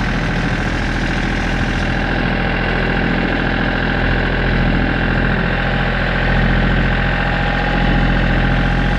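Compact tractor engine running steadily while the tractor drives along, heard from the driver's seat.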